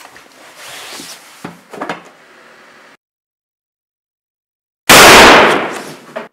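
A sudden, very loud burst of harsh noise about five seconds in, with no pitch to it, fading over about a second before it cuts off sharply: a horror-film jump-scare sting. It comes after two seconds of dead silence; before that there are faint rustles and a couple of soft knocks.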